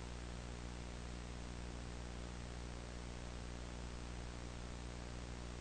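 Steady, quiet static hiss with a low electrical hum underneath, unchanging throughout.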